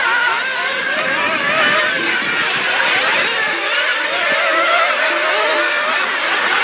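Several nitro RC buggies' small two-stroke glow engines running at once. Their high-pitched whines rise and fall as the throttles open and close.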